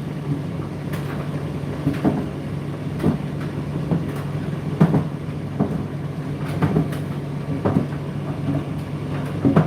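Indesit IDC8T3 condenser tumble dryer running mid-cycle: a steady low motor and drum hum, with a soft knock about once a second as the load tumbles in the turning drum.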